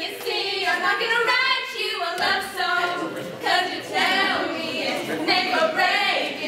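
Young women's voices singing a cappella, with no instruments.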